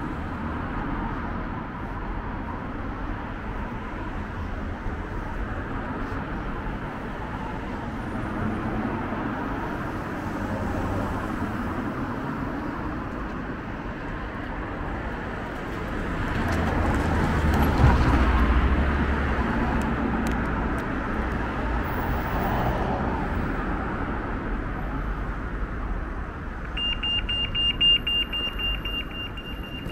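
Steady road traffic, with one vehicle passing close about two-thirds of the way through. Near the end a high-pitched electronic beeping starts, rapid and steady in pitch.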